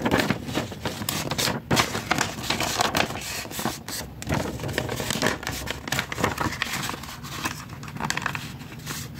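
Paper sheets rustling and crinkling as they are handled and slid across a notebook, with irregular crackles and scrapes.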